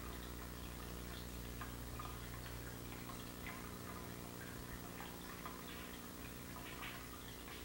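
Water dripping, small drops falling at an uneven pace a few times a second, faint over a low steady hum.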